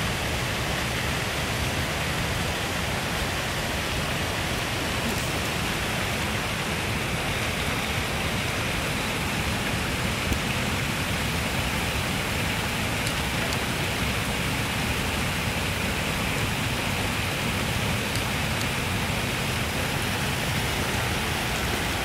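Waterfall's steady rush of falling water, unchanging throughout.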